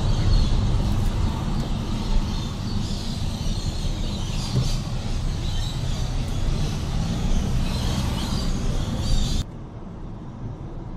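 Many birds chirping together, heard through a moving car's open windows over the low rumble of the car and tyres. About nine seconds in the chirping stops abruptly, leaving a quieter steady car hum.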